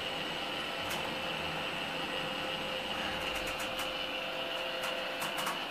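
Steady mechanical hum inside an Orona machine-room-less traction elevator car, with a few faint ticks, mostly in the second half.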